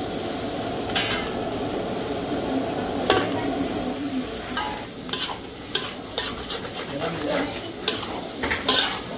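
Duck offal and green beans stir-frying in a hot pan: a steady sizzle broken by irregular scrapes and clinks of the stirring against the pan, which come more often in the second half.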